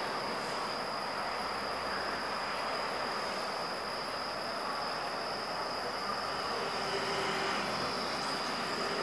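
Steady, unbroken high-pitched insect trill over a constant rushing background noise, with a faint low tone joining near the end.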